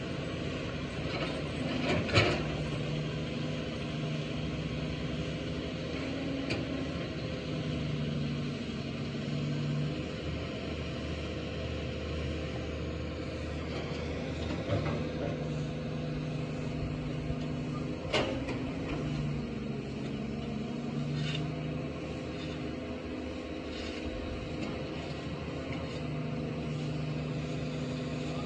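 Caterpillar 320D hydraulic excavator working soil: its diesel engine runs steadily, its pitch rising and falling a little with the hydraulic load. Sharp knocks from the bucket and boom come now and then, the loudest about two seconds in and another clear one past the middle.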